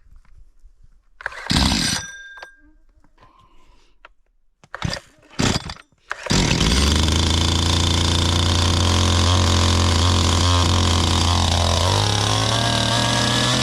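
Stihl MS 211 C two-stroke chainsaw pull-started with the easy-start recoil, catching on the second pull about six seconds in and then idling steadily. Its engine note steps up slightly near the end.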